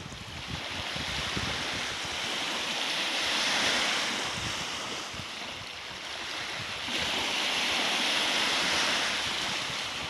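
Small lake waves washing up onto a sandy beach: a steady rush of surf that swells about three seconds in and again from about seven seconds.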